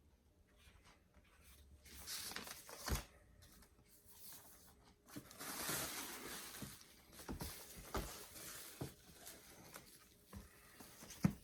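Books being handled and pulled from a storage tub: two spells of rustling from wrapping material, with a few soft knocks as the books are moved and set down, the sharpest near the end.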